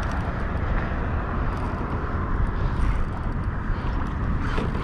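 Steady rumbling wind noise on the microphone, with choppy water splashing around a kayak.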